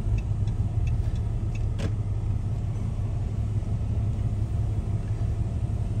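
Steady low rumble of a car's engine and tyres heard from inside the cabin while driving slowly, with one light click about two seconds in.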